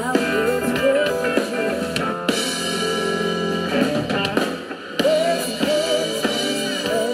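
Live band playing: drum kit, electric guitar and keyboard, with a woman singing into a microphone. The voice drops out for a held chord in the middle, and the music dips briefly just before the voice returns.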